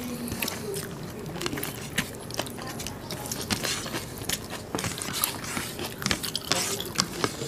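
Close-miked eating sounds: chewing and lip-smacking on mutton curry and rice eaten by hand, with fingers squishing and mixing rice on the plates. They come as many small, irregular wet clicks.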